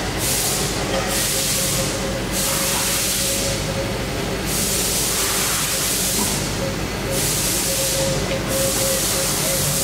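Fadal VMC4020HT vertical machining center running while an axis is jogged by handwheel: a steady machine hum with a thin tone that brightens now and then, under repeated bursts of hiss that come and go every second or two.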